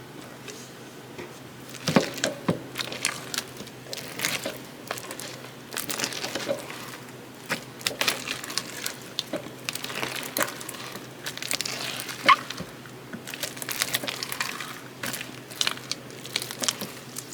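Blue slime being worked and squished, giving irregular sticky clicks, pops and crackles that start about two seconds in and go on unevenly.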